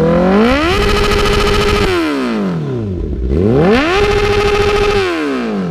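A 2015 Honda CBR1000RR's 999 cc inline-four, breathing through a Yoshimura slip-on exhaust, revved twice while standing still. Each time the revs climb, hold steady for about a second, then fall back toward idle.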